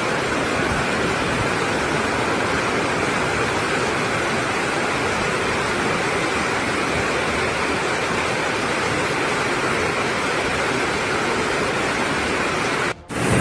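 Heavy rainstorm with floodwater running across the street: a steady, even rush of water noise that drops out abruptly for a moment near the end.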